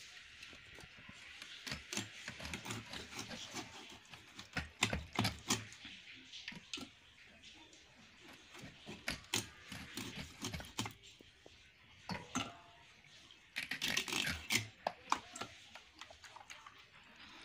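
Tilapia being scaled and cut against a metal blade over a stainless steel bowl: irregular sharp clicks and short scrapes of scales and skin on metal, with a denser run of scraping late on.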